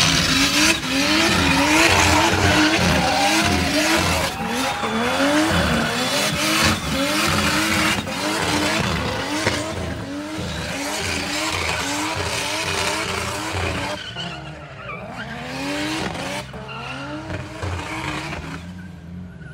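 Turbocharged BMW M50 straight-six in an E36 doing a burnout: the engine revs rise and fall over and over as the rear tyres spin and squeal in a constant screech. It gets fainter over the last few seconds.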